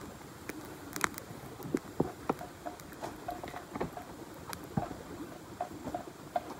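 Hand hoe chopping into dry, weedy ground: irregular sharp strikes with scraping, soil and debris pattering down.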